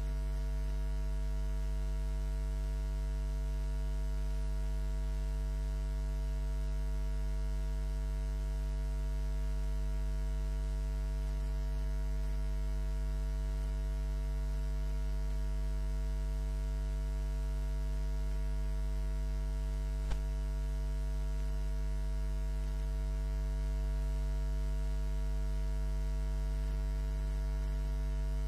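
Steady low electrical mains hum with a buzzing row of evenly spaced overtones, unchanging throughout, and a single faint click about two-thirds of the way through.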